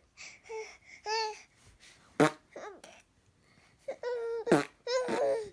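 A baby babbling and laughing in short high-pitched bursts, with a brief fart noise about two seconds in.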